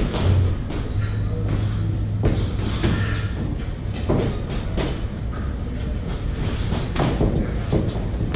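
Irregular thuds and slaps of boxing gloves and footwork on the ring canvas during a sparring round, many short knocks in quick uneven succession.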